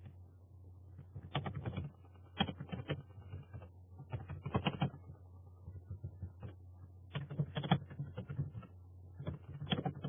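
Typing on a computer keyboard: short bursts of quick key clicks, about five of them, over a low steady hum.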